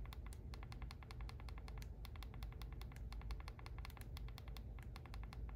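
iPhone 15 Pro volume buttons pressed through the leather-covered buttons of an Andar Aspen leather case, giving soft, rapid clicks in runs of one to two seconds with short pauses between.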